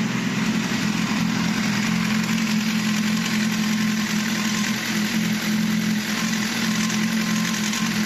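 BMW S1000 inline-four engine idling steadily, carrying a mechanical noise that sounds like the clutch but comes from the exhaust valve.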